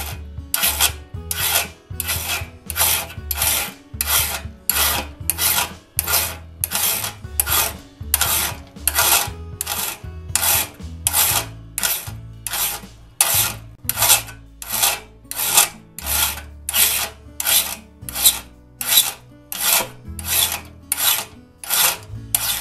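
Hand file rasping steel on the raker tooth of a one-man crosscut saw, in steady, even strokes, nearly two a second. The raker is being filed down flush with a raker gauge.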